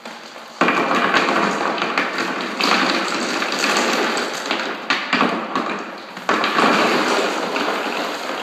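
Crushed granite ballast stones poured into the table's tray, a continuous clatter of many small stones starting about half a second in and surging again several times.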